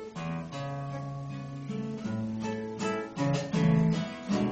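Acoustic guitar strummed as the introduction to a song, with a new chord struck every half second to a second over a moving bass line.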